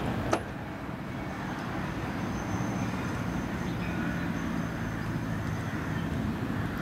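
Trams running in the distance along the line, a steady low rumble with a faint high tone for a second or two in the middle. A single sharp click comes about a third of a second in.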